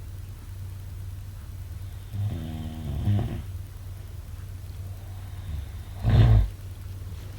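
A person snoring in their sleep: a longer, pitched snore about two seconds in, then a short, louder snort about six seconds in, over a steady low hum.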